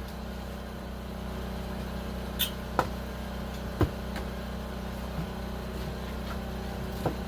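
A steady low motor hum runs throughout, with a few scattered knocks and one short scrape as things are moved and handled while an area is cleared out.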